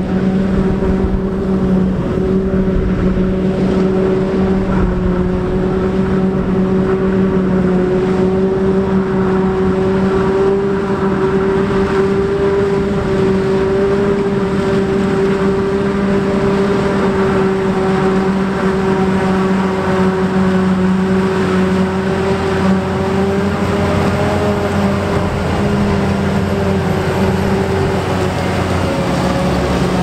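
Claas Jaguar 980 forage harvester chopping corn under load, with the Fendt tractor pulling the forage box running alongside: a loud, steady machine drone with a held whine on top. The low tones shift slightly near the end.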